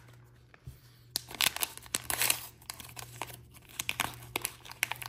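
Small crimped-edge wrapper packet being torn and pulled open by hand: irregular crinkling and tearing rustles that start about a second in.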